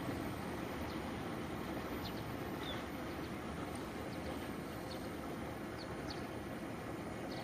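Outdoor ambience beside a railway line: a steady, distant low rumble that eases slightly, with short high bird chirps every second or so.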